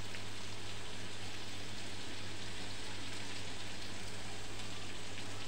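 Eggplant slices sizzling in oil in an iron karahi: a steady, even hiss, with a low steady hum underneath.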